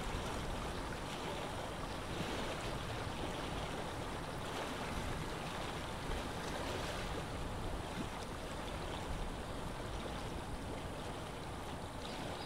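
Steady lake ambience of water lapping, mixed with wind: an even wash of noise with no separate events.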